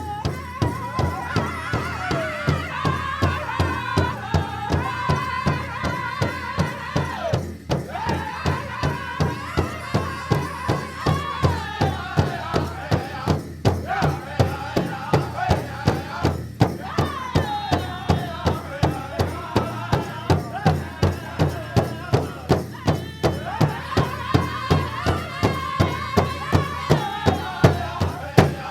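African festival-style folk music: a steady drum beat of evenly repeating strokes under a lead melody that bends up and down in pitch.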